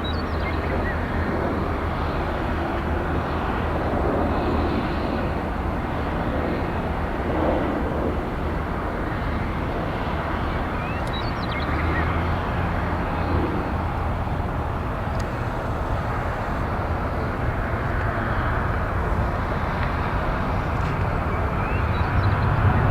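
Jet aircraft engine noise across an airfield: a steady rumble that swells near the end.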